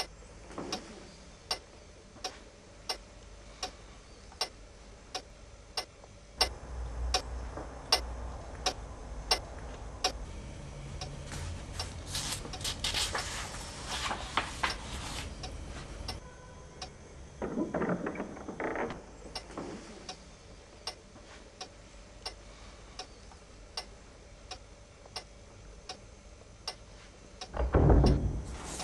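A clock ticking steadily, a little faster than one tick a second. Book pages rustle as they are turned near the middle, and there is a louder dull rustling thump near the end.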